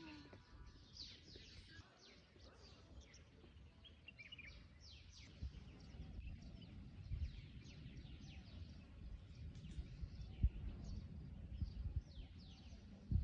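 Birds chirping outdoors: many short, quick downward-sweeping calls repeated throughout. Underneath is a faint low rumble with a few dull thumps in the second half, the loudest just before the end.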